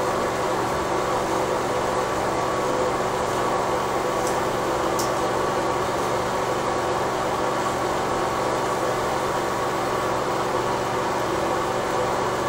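Steady mechanical hum with a hiss, like a fan or ventilation unit running, with two faint ticks about four and five seconds in.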